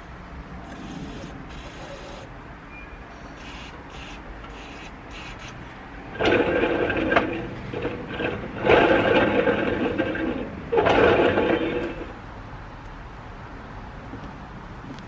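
Air conditioner condenser fan motor running with worn, dry bearings, making a steady rough scraping that swells into three louder grinding stretches about six, nine and eleven seconds in. The owner judges the bearings beyond redemption after years without lubrication.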